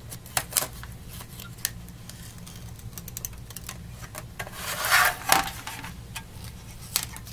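Scattered light clicks and taps of a printed circuit board being handled and set down on a work mat, with a louder rustling scrape about five seconds in. A steady low hum sits underneath.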